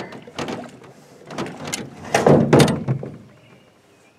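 A run of knocks, clunks and thumps against an aluminum jon boat's hull as things are handled in the boat, the heaviest thuds coming about two to three seconds in, then dying away.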